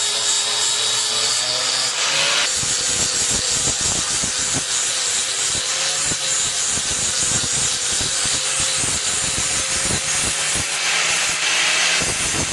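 Electric grinder running with a steady motor whine. From about two seconds in, steel is being ground against it in a continuous scrape.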